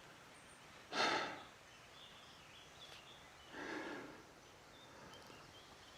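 Two breathy exhales about two and a half seconds apart over a quiet outdoor background.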